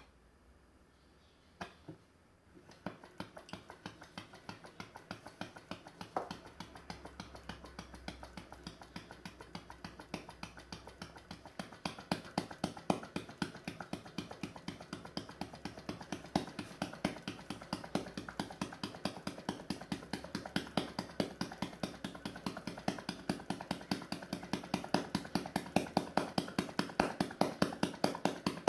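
Model vacuum (flame-licker) engine spun over by hand on its flywheel. It catches about three seconds in and runs with a fast, even clicking that grows louder partway through.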